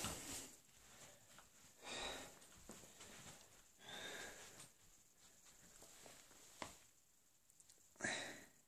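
Near silence, broken by a few faint breaths or sniffs close to the microphone, about two seconds apart.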